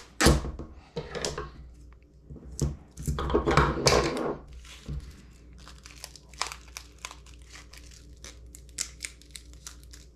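Adhesive tape ripped off its roll in a few loud rasps, then a plastic bag crinkling with many small crackles as the tape is wrapped and pressed around the bagged GPS unit.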